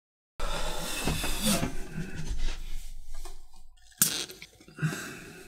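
A sharp pop about four seconds in as a bottle opener pries the cap off a glass bottle. Before it, about three seconds of indistinct sound.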